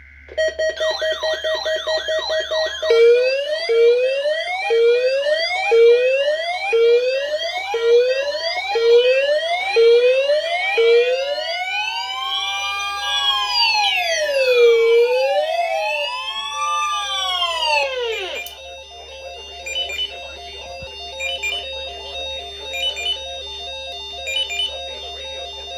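Several weather alert radios sounding their alarms together during a Required Weekly Test. Overlapping electronic siren tones go from a fast warble to a rising whoop about once a second, then slow up-and-down wails. About 18 seconds in these give way to a steady chorus of beeping alarm tones.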